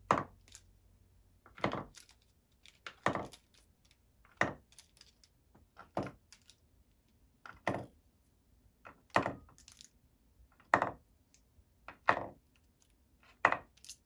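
Markers and pens dropped one at a time into drilled holes in a wooden pen holder, each landing with a short wooden knock. About ten knocks, roughly one every second and a half.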